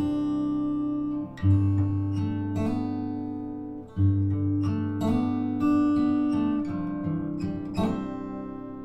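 Acoustic guitar music, notes picked and strummed, with deep bass notes struck about a second and a half in and again about four seconds in, each ringing on.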